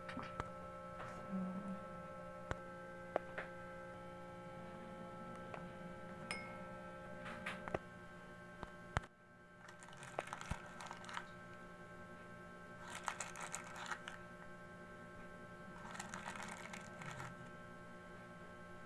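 Faint room tone with a steady electrical hum, a few small clicks, and two brief bursts of light rustling in the second half.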